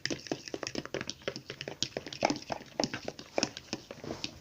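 Sticky homemade slime mixture of glue and foam being stirred and squished, giving rapid irregular wet clicks and squelches.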